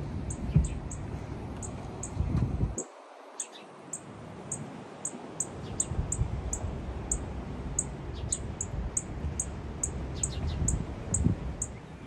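Wind rumbling on the microphone, cutting out abruptly about three seconds in and slowly returning. Over it run a quick, uneven series of very high chirps or ticks, two or three a second, and a few faint bird calls.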